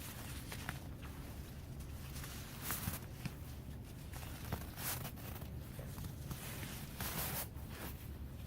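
Nylon fabric rustling and scraping in short bursts as a stuff sack is worked over a rolled-up self-inflating sleeping pad, over a steady low hum.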